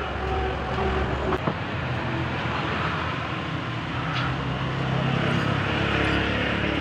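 A motor vehicle's engine running steadily, growing a little louder from about three seconds in, with a couple of light metal clicks about a second and a half in.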